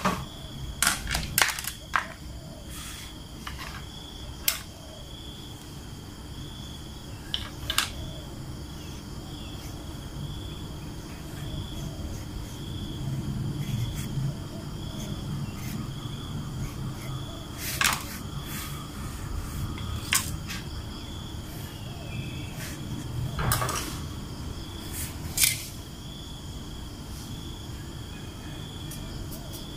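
Scattered knocks and taps as a starfruit is handled, peeled along its ridges and cut on a plastic cutting board. Under them, a steady high insect chirping pulses evenly.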